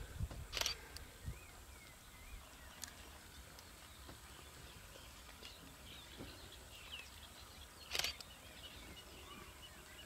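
Quiet open-air ambience with faint, scattered bird calls and chirps. Two sharp clicks stand out, one about half a second in and one about eight seconds in.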